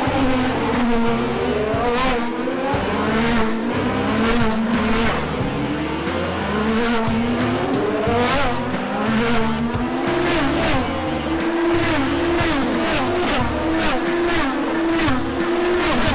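IndyCar race cars, running 2.2-litre twin-turbo V6 engines, passing at speed one after another, their engine notes rising and falling in pitch through the gear changes.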